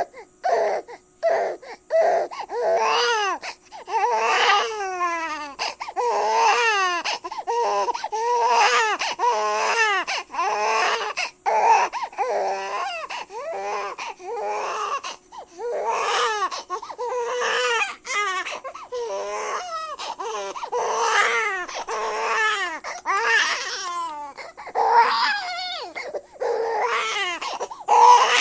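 Infant crying continuously: a series of wailing cries about a second long each, rising and falling in pitch, with short gasping breaths between them.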